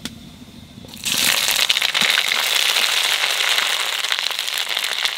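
Ginger paste hitting hot oil in a wok with bay leaves and panch phoron, sizzling loudly with a fine crackle. The sizzle starts suddenly about a second in, as the paste goes in, and carries on steadily.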